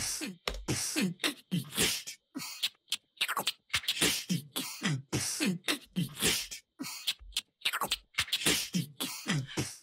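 Beatbox loop sample played back on its own, dry, without the rhythmizer effect. A steady repeating pattern of mouth-made drum sounds: hissy snare and hi-hat hits alternating with low kick thumps that drop in pitch.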